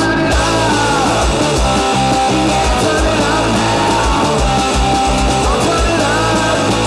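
Loud garage rock recording: a band with electric guitar over bass and drums, playing at a steady driving pace.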